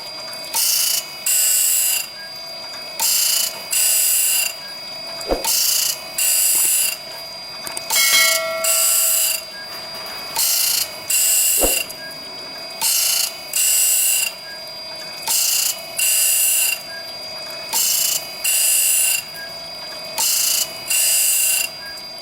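Saw-blade machine working in a steady cycle: a short, high hissing stroke about every second, often in pairs, over a steady hum and thin whine, with two sharp knocks along the way.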